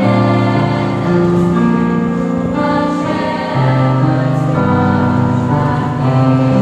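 Mixed choir of male and female voices singing a Christmas carol in parts, with long held notes that move to a new chord every second or so.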